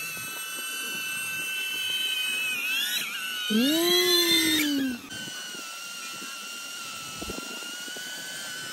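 DJI Avata FPV drone's propellers whining in flight with steady high tones. About three seconds in the pitch swoops up and back down and the sound is loudest for a second or two, then it settles back to a steady whine.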